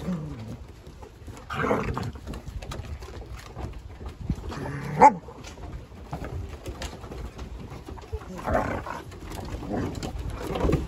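Puppies and an adult German Shepherd vocalizing as they play-fight: about four short growls and whines, the loudest a sharp cry about five seconds in.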